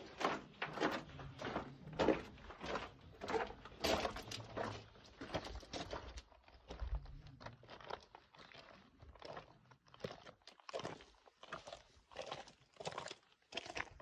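Footsteps crunching on a loose, stony mountain trail at a steady walking pace, about two steps a second.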